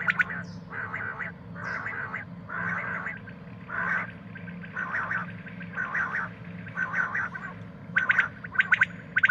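Common quail calling: a series of harsh, raspy notes at about one a second, followed near the end by a quicker run of sharp, clipped notes, over a faint steady low hum.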